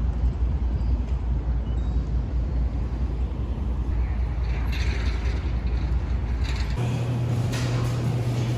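Low rumble of a moving vehicle. About seven seconds in, the sound changes abruptly to a steady low hum.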